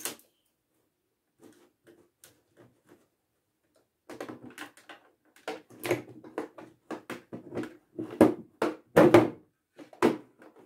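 Clear plastic packaging crinkling and rustling as a ring light is handled and lifted out of its tray. There are only a few faint rustles at first, then a dense run of crinkles and knocks from about four seconds in.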